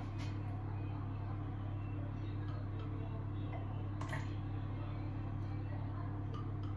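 Steady low hum of a fan oven running as it preheats, with a faint clink of a metal measuring spoon about four seconds in.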